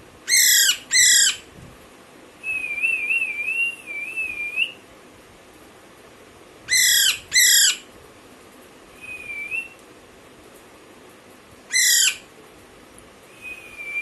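A young Alexandrine parakeet calling. It gives loud harsh screeches in two quick pairs, one right at the start and one about seven seconds in, and a single screech near twelve seconds. Between the screeches come a quieter wavering whistle lasting about two seconds and two short whistles.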